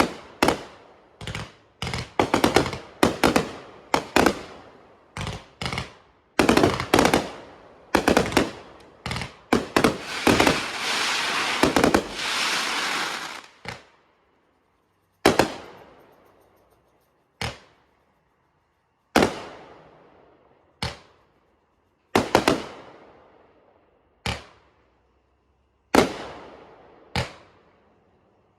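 Fireworks going off: a rapid string of sharp bangs, then a few seconds of continuous crackling hiss about ten seconds in, then single loud bangs every second or two, each fading away after it.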